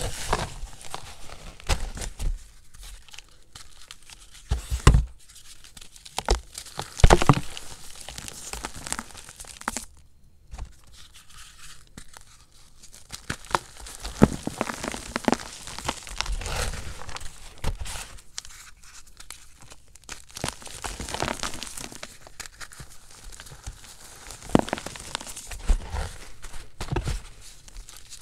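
Hands crushing and squeezing a gym chalk cake topped with cornstarch crunchies: irregular crunching and crumbling as the chalk breaks into soft powder, with the sharpest crunches about five and seven seconds in.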